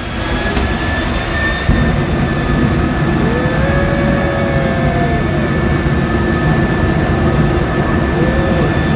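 Jet-engine truck's turbine running at high power: a steady, loud roar with a high whine over it, stepping up louder about two seconds in.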